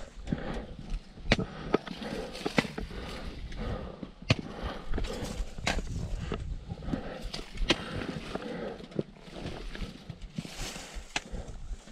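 Footsteps of a hiker climbing stone steps, with a boot scuffing on rock and the metal tip of a trekking pole striking stone in sharp, irregular clicks every second or so.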